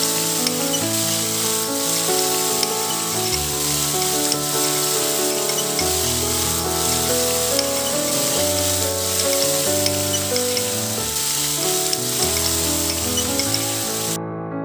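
Rice sizzling in a hot pan as it is stirred with a spatula, an even crackling hiss heard under background music of slow held notes. The sizzle cuts off suddenly near the end, leaving only the music.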